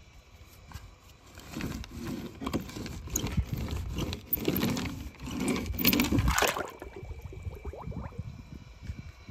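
A die-cast toy bus pushed by hand across paint-smeared paper, its wheels and body scraping and rattling in uneven strokes from about a second and a half in until just under seven seconds.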